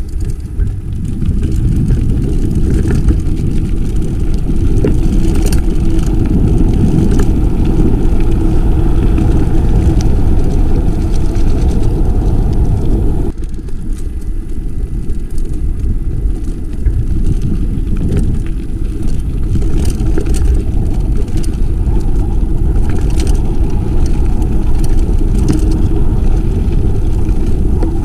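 Mountain bike being ridden along a dirt trail: a loud, steady rush of wind buffeting the camera microphone, mixed with tyre noise and scattered clicks and rattles from the bike. The noise dips briefly about 13 seconds in.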